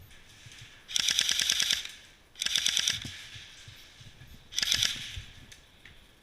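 Airsoft gun firing three rapid full-auto bursts, the first the longest, the last short.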